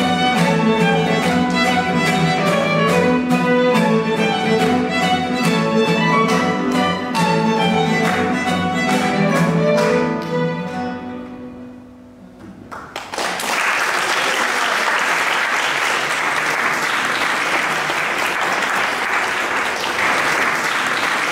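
A small string ensemble of violin, mandolin, guitar and cello playing the closing bars of a Greek rebetiko-style song, with regular plucked strokes under the bowed strings, ending on a chord that dies away about ten seconds in. Then an audience applauding.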